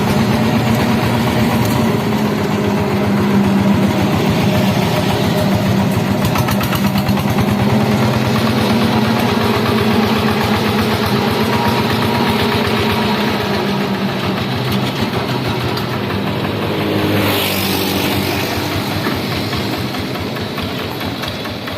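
Changfa single-cylinder diesel engine running steadily as it drives the loaded hauler along. About seventeen seconds in the engine note drops, and it gets quieter toward the end as the vehicle slows.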